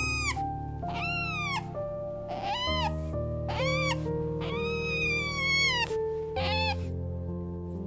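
Background music of slow held chords, with about half a dozen meow-like animal calls laid over it. Each call rises then falls in pitch; the longest is in the middle.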